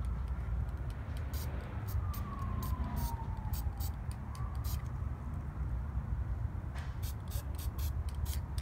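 Aerosol spray paint can hissing in many short, quick bursts, dusting light coats of paint, in two clusters, the second starting near the end. Under it a low steady rumble, and a faint distant siren that falls in pitch and then rises again.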